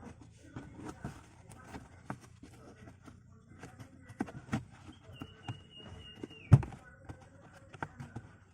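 Irregular knocks, taps and rustles of a car floor mat and its fittings being handled, with one sharp knock about six and a half seconds in. Just before that knock, a brief steady high tone sounds for about a second.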